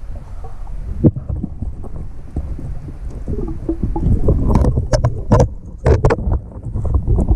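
Water moving around an underwater action camera, a muffled low rumble, with a sharp knock about a second in and a run of splashes in the second half.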